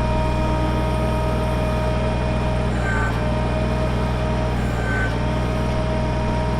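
Kubota BX23S compact tractor's three-cylinder diesel running steadily while the backhoe works, with a thin steady whine over the engine.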